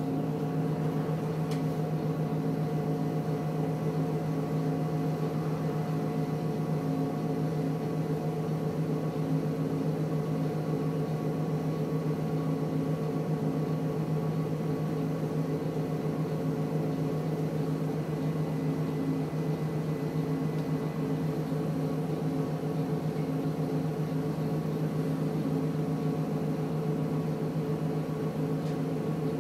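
Volvo B7RLE bus's rear-mounted six-cylinder diesel idling, heard from inside the cabin as a steady, even hum that holds one pitch throughout.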